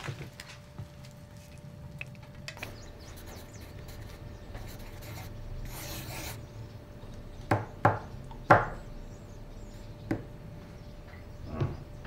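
Pencil scratching and rubbing on paper as a plan is drawn, with a short hiss about halfway through and three sharp taps a little after.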